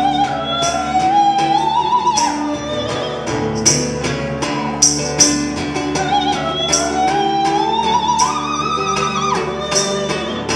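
Live concert music: a female singer sings a high, wordless line that climbs twice with vibrato over instrumental accompaniment, with regular sharp percussive hits.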